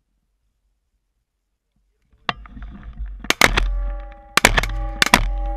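A rapid string of shotgun shots at ducks in flight, starting a little over two seconds in, some shots coming in close pairs, with ringing between them.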